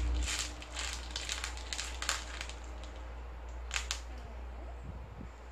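Short crackling and crinkling noises, several in the first two seconds and a couple more near four seconds in, from a child handling a plastic jelly bean packet and eating jelly beans, over a steady low hum.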